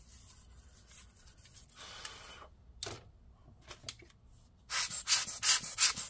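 Toothbrush bristles scrubbing dust out of a laptop cooling fan's blades and housing. Faint brushing at first, then a quick run of louder scratchy strokes near the end.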